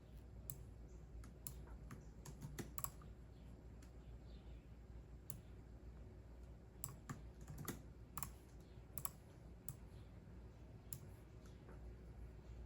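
Faint typing on a computer keyboard: scattered keystrokes in two short, irregular runs with pauses between them.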